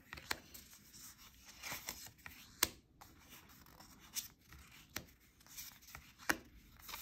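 Tarot cards being taken one by one off the top of a deck on a wooden table: soft sliding and rustling of thick card stock, with a sharp little snap every second or so as each card comes off or is laid down.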